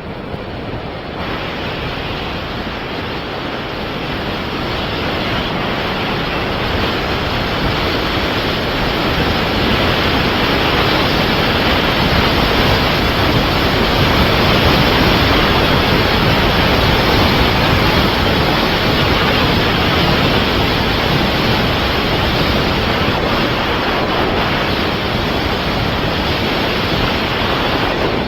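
Steady rush of wind buffeting the microphone of a skier going downhill, growing louder over the first ten seconds or so as speed builds, then holding.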